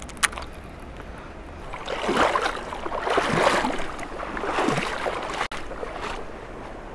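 River water splashing and sloshing around a person wading through shallows over rocks. It comes in uneven surges for a few seconds in the middle, after a single sharp click near the start.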